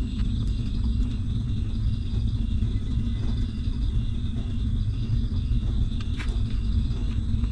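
Steady low rumble with faint, evenly repeating high chirps over it.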